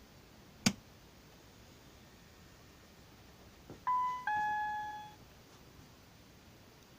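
A sharp click, then a few seconds later a two-note electronic chime: a short higher note followed by a lower one that fades away.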